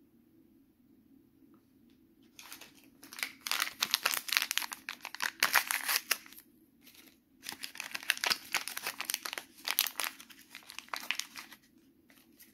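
Small printed plastic toy packet being torn open and crinkled in the hands. There are two spells of dense crackling, each about four seconds long, with a pause of about a second between them.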